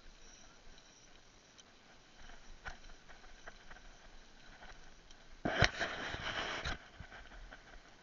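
Mountain bike riding along a dirt trail: scattered clicks and rattles, then a louder rush of scraping noise with a sharp knock about five and a half seconds in, lasting about a second.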